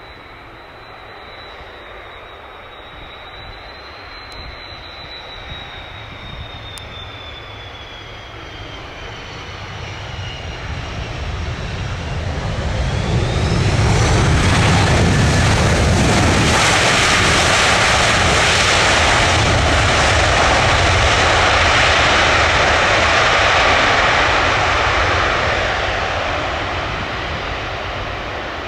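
Arriving Airbus A330-300 twin-jet passing close: the engines' whine drops in pitch as it approaches and grows louder, swelling about halfway in to loud jet noise with a deep rumble that lasts around ten seconds, then starts to fade near the end.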